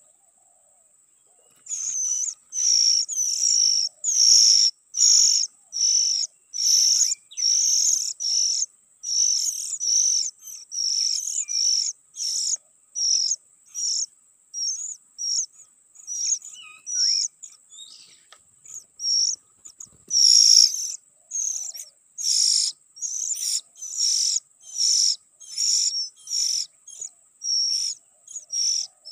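Oriental magpie-robins (kacer) calling while feeding young: short, high, rasping calls repeated over and over, about one and a half a second, starting about a second and a half in.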